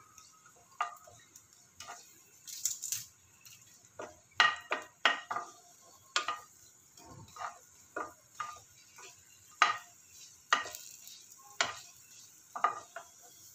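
Wooden spatula knocking and scraping irregularly against a non-stick frying pan while a lump of asafoetida fries in a little sesame oil, with a faint sizzle under it.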